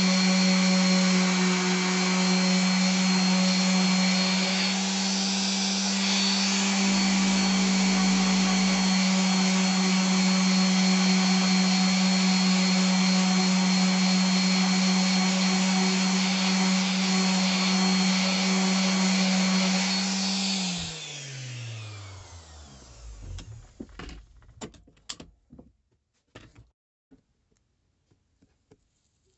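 Dnipro-M random orbital sander running steadily while sanding an epoxy resin and wood block. About twenty seconds in it is switched off and winds down with a falling pitch, followed by a few light handling clicks.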